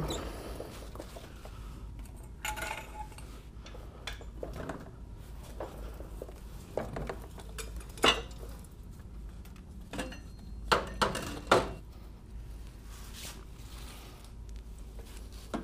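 Metal clinks and clanks from a car's front subframe and its parts being handled: scattered sharp knocks, the loudest about eight seconds in and a quick run of three around eleven seconds.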